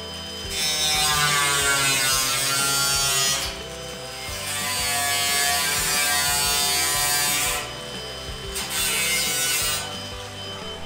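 Cordless angle grinder with a thin cut-off disc trimming the edge of a sheet-steel patch panel: three cutting passes, the last one shorter, the motor's whine dipping in pitch under load and recovering between passes.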